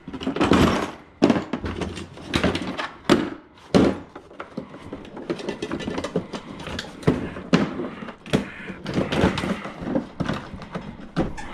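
A hard plastic tool case and hand tools being handled on a wooden workbench: an irregular run of clunks, knocks and rattles.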